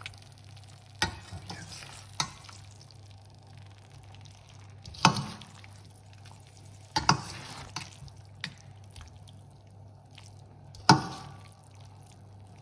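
Metal pasta server stirring spaghetti and tomato sauce in a stainless steel pan, knocking and scraping against the pan in a handful of sharp clanks, the loudest about five and eleven seconds in, over a low steady hum.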